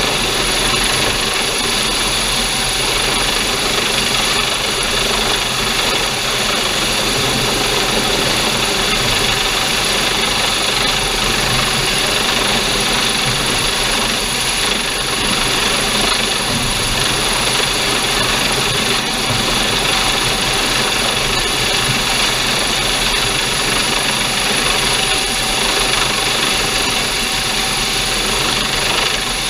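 Coast Guard MH-65 Dolphin helicopter hovering low overhead during a hoist, its turbine whine and rotor noise running loud and steady, with the downwash blowing across the microphone.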